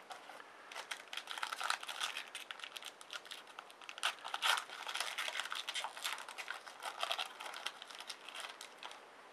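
Foil wrapper of a trading-card pack being torn open and crinkled, a dense irregular crackling that starts about a second in and runs until just before the end.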